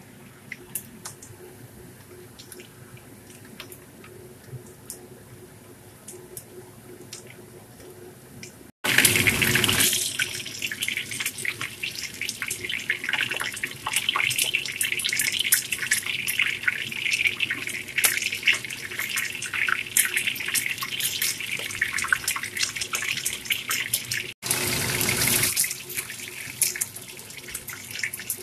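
Egg-white and cornstarch coated fish fillet pieces frying in hot oil in a wok: a steady sizzle with dense crackling. It is faint at first, jumps abruptly to much louder about nine seconds in, and drops out briefly near the end before sizzling again.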